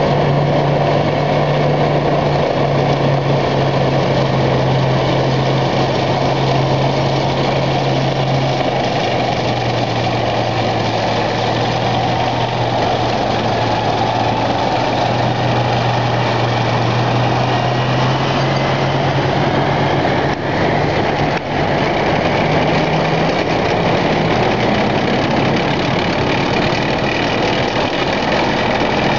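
Heavy tracked military vehicles, a T-90 tank among them, driving past close by: a loud, continuous engine drone with steady low tones that dip and rise slightly in pitch as the vehicles go by, over a dense noise of tracks and running gear on the road.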